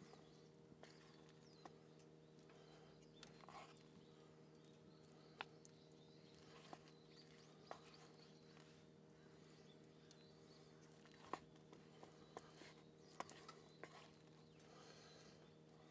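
Near silence with a steady low hum, broken by scattered light clicks and knocks (about eight) of cooking gear and utensils being handled.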